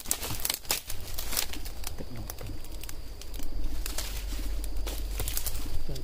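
Dry leaves, vines and twigs crackling and rustling as they are pushed aside and snapped, in a string of short sharp crackles.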